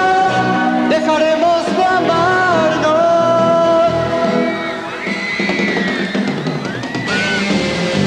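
Live band music: a held, stepping melody line over drums for about four seconds. It then gives way to a quieter, looser passage as the music changes.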